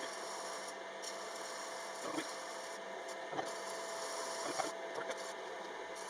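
Steady workshop hum with a few light knocks, about one every second or so, as metal parts are handled on the bench.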